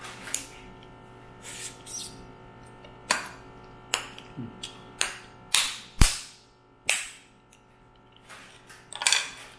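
Cooked mud crab shell being cracked and broken open while eating: an irregular string of sharp cracks and snaps, with a heavier knock about six seconds in.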